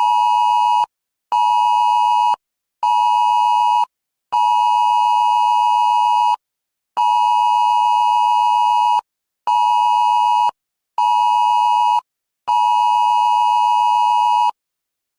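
Wireless Emergency Alert attention tone announcing a flood warning: a steady two-note beep near 1 kHz sounding in repeated bursts of one long blast of about two seconds and two short ones of about a second, with half-second gaps. It stops near the end.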